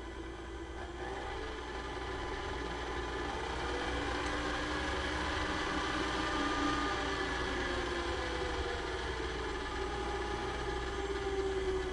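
Vintage KitchenAid K45 stand mixer running with its beater in an empty glass bowl, the motor whirring steadily. About a second in the whine gets louder and rises in pitch as the speed lever is moved up, and it shifts in pitch again later.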